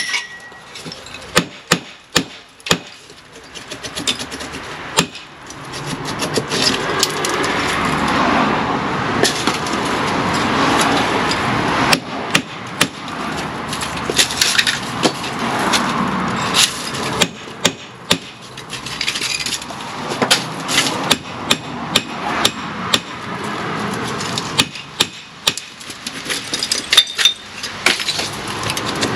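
Brick hammer striking brickwork and mortar: repeated sharp, irregular knocks as bricks are chipped and knocked out of a wall. A continuous rough noise runs beneath the blows for much of the time.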